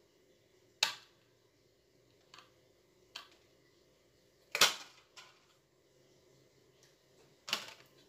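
A few sharp, irregular clicks and knocks from a stereo's power-supply circuit board being handled and turned over by hand, the loudest about halfway through.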